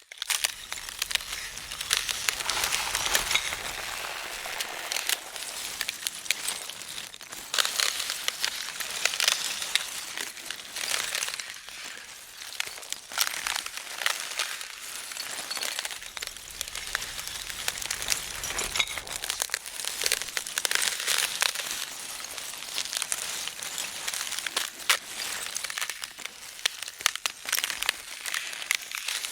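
Earthquake sound effect of ground cracking and rocks, stones and debris falling and clattering. It is a dense, continuous crackle of many sharp knocks, mostly high-pitched with little deep rumble, and it swells louder every few seconds.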